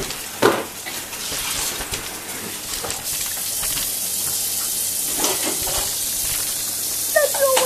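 Kitchen tap running into the sink: a steady hiss that starts about three seconds in, with a couple of knocks before and during it.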